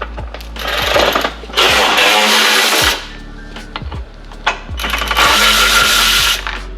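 Power driver spinning out T25 Torx screws in three short runs, with background music and a steady beat underneath.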